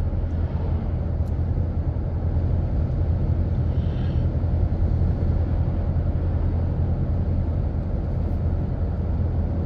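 Steady road and engine noise inside a pickup truck's cab cruising on the highway: a low drone with an even hiss above it.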